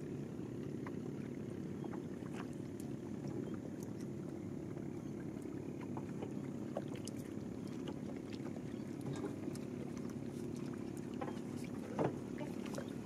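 Small boat on the river: a steady low rumble, with scattered light knocks and clicks and one louder knock near the end.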